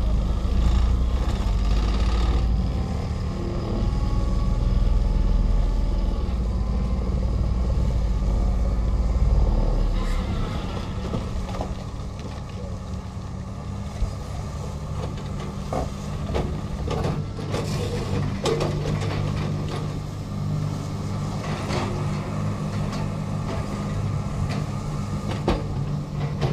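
Excavator diesel engine running under load while an Xcentric Ripper XR30 vibratory ripper attachment works into a rock face. A heavy low rumble runs through about the first ten seconds, then come scattered sharp knocks and cracks of rock breaking and falling.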